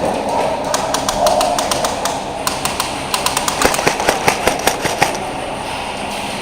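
Airsoft guns firing: a run of sharp snapping shots at an uneven pace, thickest through the middle few seconds, over steady outdoor background noise.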